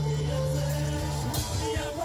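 Heavy metal band playing with distorted guitar and drum kit. A held low chord breaks about a second in into choppy drum hits.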